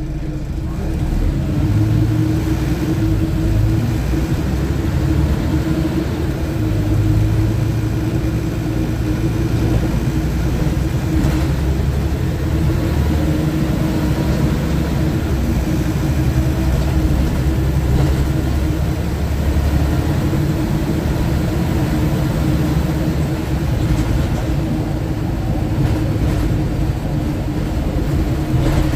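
Scania OmniTown bus's diesel engine and running gear under way, heard inside the passenger saloon: a steady low rumble with a constant hum.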